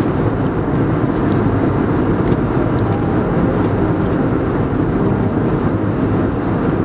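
Steady cabin noise of an airliner in cruise: the even, low rush of engines and airflow heard from a window seat.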